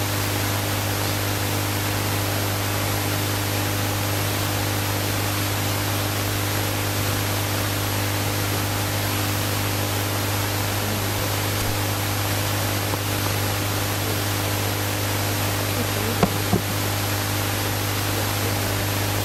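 Steady, even hiss with a low hum underneath, the noise of an open sound system or recording chain with no one talking. A couple of faint knocks come about three-quarters of the way through.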